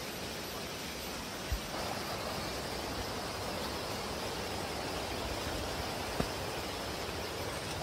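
Steady rushing of a rocky forest stream, with two brief knocks: one about a second and a half in, another near six seconds.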